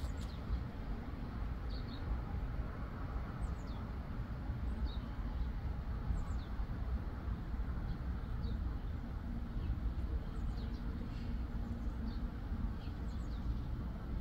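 Outdoor ambience: a steady low rumble of background noise, with small birds giving short, faint high chirps every second or two.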